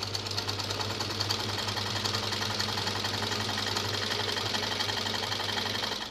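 1909 Singer sewing machine, converted to an electric motor with a foot pedal, running fast and stitching cloth. A steady motor hum sits under the rapid, even clatter of the needle mechanism, and it stops near the end.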